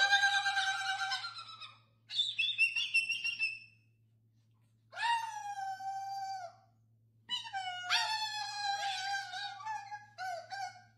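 Cockatoos screeching in a string of five long, loud, high calls. Each call lasts one to two seconds, with short pauses between.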